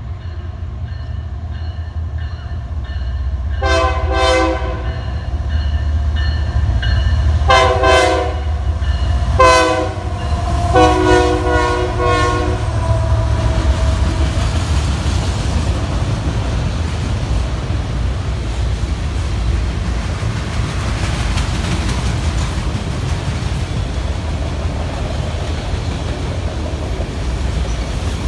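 A freight locomotive's multi-chime air horn sounds four blasts: long, long, short and then a longer final blast, the pattern of the grade-crossing signal. The steady low rumble and clatter of autorack freight cars rolling past on the track carry on beneath it and after it.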